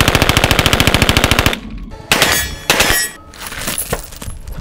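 Submachine gun firing a sustained full-auto burst, about twelve shots a second, that stops about a second and a half in. Two shorter loud sharp noises follow about a second later.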